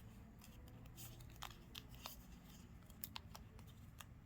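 Faint, scattered light clicks and rustles of craft-foam kit pieces being handled, with a sharper click near the end.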